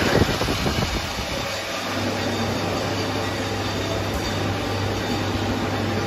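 Steady din of workshop machinery running, with a steady low hum that settles in about a second and a half in.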